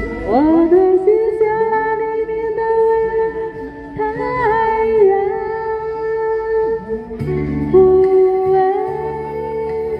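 A woman singing into a handheld microphone over backing music with guitar. She slides up into a long held note at the start and holds long notes, wavering with vibrato about four seconds in.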